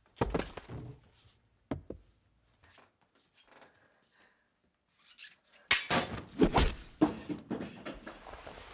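Sound effects of a fight between two people in a small room: a heavy thud right at the start and another knock about a second and a half later, faint scuffling, then from about two-thirds of the way in a dense flurry of knocks, clatter and scraping.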